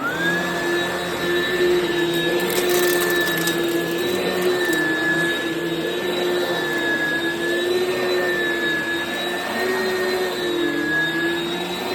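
Oreck XL Commercial upright vacuum cleaner switched on, its motor spinning up at once to a steady high whine that wavers slightly in pitch.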